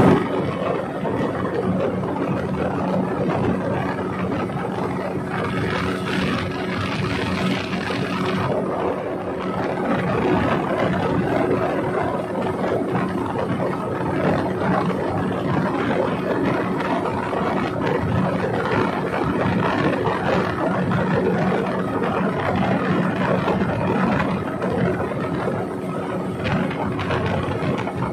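Outboard engine of a passenger longboat running steadily at speed, a constant hum under loud rushing wind and water, with a stretch of louder hiss about six to eight seconds in.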